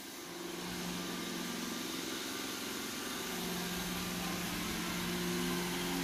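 Roomba s9 robot vacuum running, its suction motor getting louder within the first second and changing pitch again about halfway through as its power setting is raised from medium to high.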